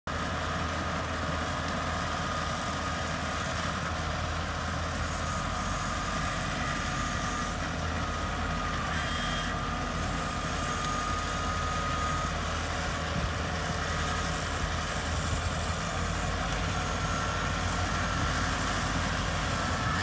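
Kubota DC-70 Plus rice combine harvester's diesel engine running steadily, a constant low hum with a thin high whine on top.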